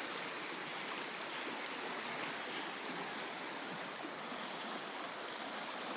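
Mountain creek rushing steadily, its water running high from the rain.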